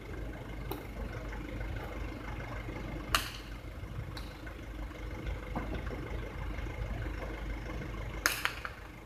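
Two sharp knocks of a hard jai alai pelota striking the concrete court or wall, one about three seconds in and another, a quick double, near the end, over a steady low background hum.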